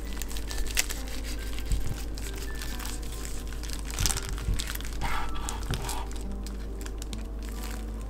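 Kitchen knife slicing through a rice roll wrapped in dried laver on a wooden cutting board: crisp crinkling and crunching as the blade cuts the seaweed, with a louder crunch about four seconds in and again a second later.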